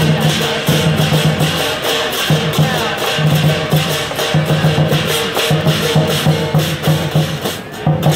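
Chinese lion dance percussion: a large drum beaten in fast, continuous strokes, with cymbals clashing along.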